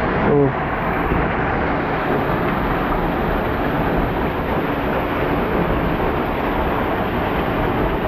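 Waterfall pouring down at close range: a steady, loud rushing of falling water.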